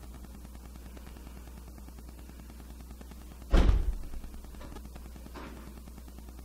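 A single heavy thump about three and a half seconds in, with a much fainter knock nearly two seconds later, over a steady low hum.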